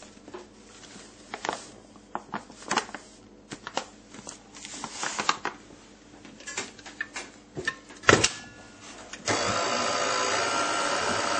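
A series of knocks and clicks from handling the stand mixer's beater and steel bowl, the loudest clack a little after eight seconds. About nine seconds in, the KitchenAid 600-series stand mixer's motor switches on abruptly and runs steadily.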